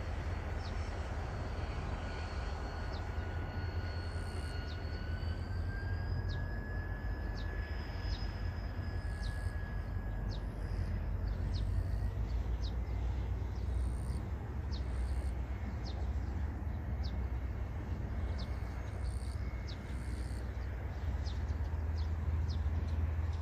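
Distant Korail 7500-class diesel locomotive pulling a passenger train away, heard as a steady low rumble.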